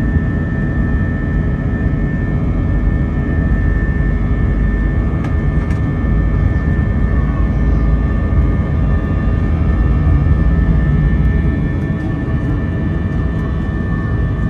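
Airbus A320 jet engines and airflow heard from inside the cabin under takeoff-climb thrust: a loud, steady rumble with a steady high whine on top.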